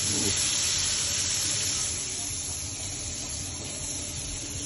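Breaded marlin fillets deep-frying in a pan of hot oil: a steady sizzling hiss, a little quieter after about two seconds.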